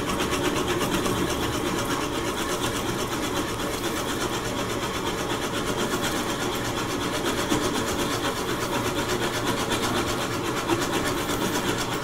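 Wood lathe running slowly with a twist drill bit boring a centre hole into a large spinning log, chips packing out of the bit's flutes. A steady machine sound with a fast, even pulse.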